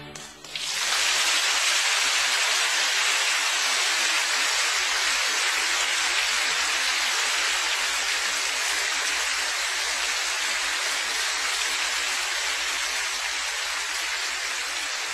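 A loud, steady hiss of even noise that starts abruptly about half a second in, as violin music cuts off.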